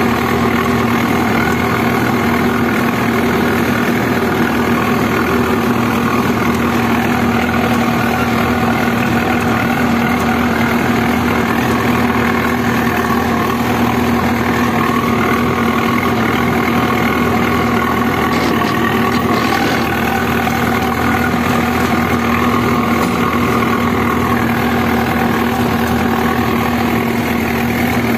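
Preet 6049 tractor's four-cylinder diesel engine running steadily under heavy load, heard from the driver's seat while pulling a disc harrow through worked soil. The engine note holds an even pitch throughout.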